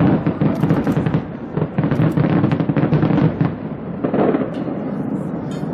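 Fireworks going off in rapid succession, a dense run of bangs and crackles with no gap between them.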